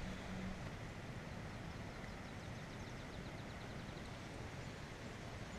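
Quiet open-air ambience: a steady low rumble and hiss, with a faint rapid run of high ticks for about two seconds in the middle.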